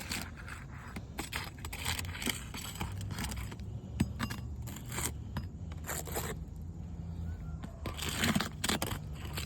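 Asphalt roof shingles being unsealed: a tool scraping and prying under the shingle tabs, breaking their sealant with irregular scrapes, crackles and small knocks.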